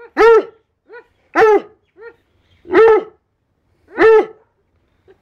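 An old Rottweiler barking: four loud barks about a second and a quarter apart, with short, softer barks between them. It is an old man's bark.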